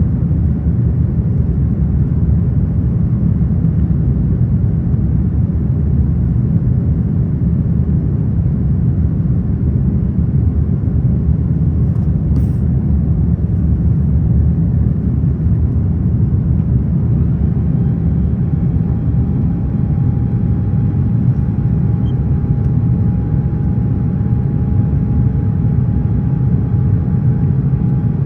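Steady low cabin rumble of an Airbus A330 airliner in flight after takeoff: engine and airflow noise heard from a passenger seat. A faint steady whine joins about two-thirds of the way through, and there is one brief click about halfway.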